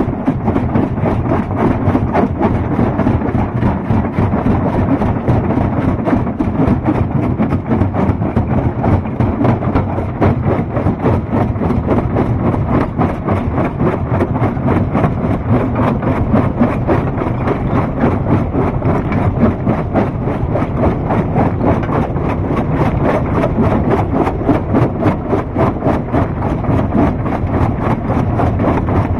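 Stone crusher running: a loud, steady mechanical din of engine and machinery, with a constant rapid rattle.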